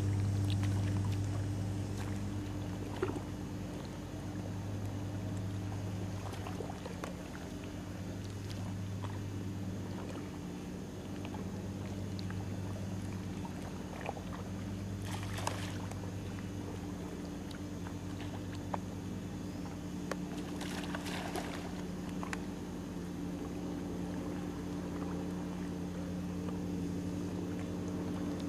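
Steady low drone of a running motor, like an idling boat engine, with two brief splashes, one about halfway through and another a few seconds later.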